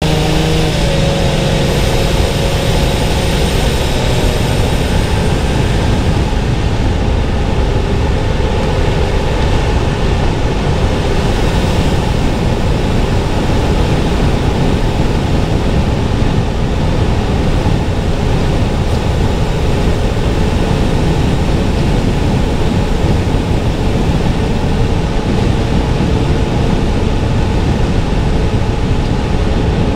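Steady road and engine noise of a car driving, heard from inside the cabin, with a pitched engine tone that shifts during the first few seconds.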